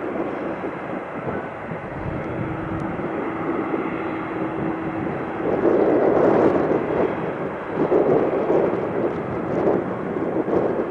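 Boeing 747 freighter's four jet engines running as it moves on the runway, growing louder about halfway through.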